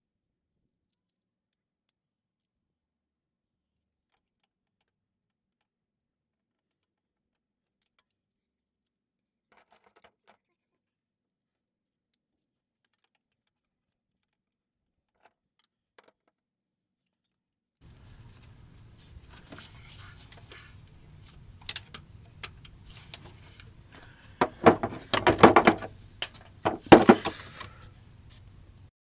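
Metal hand tools clicking, clinking and rattling during work on the engine, with louder jangling clusters near the end; the first half or so is dead silent.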